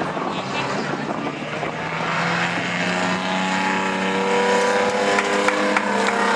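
Several dirt-track sedan race cars running hard in a pack, their overlapping engine notes rising in pitch and growing louder from about halfway through as they accelerate along the straight.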